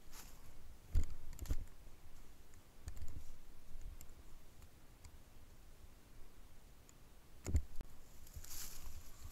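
Scattered small clicks and soft knocks, the sharpest about a second in and again about seven and a half seconds in, followed by a brief rustle.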